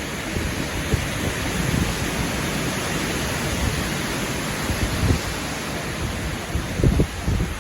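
Strong storm wind rushing steadily, with gusts buffeting the microphone in irregular low rumbles.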